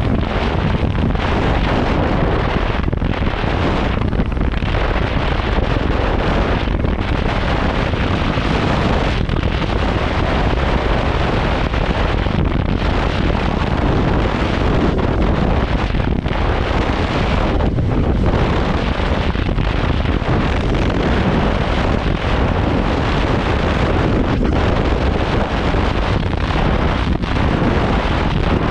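Wind buffeting the microphone of a moving motorcycle: a loud, steady rush that covers the bike's own engine, with brief dips in the hiss now and then.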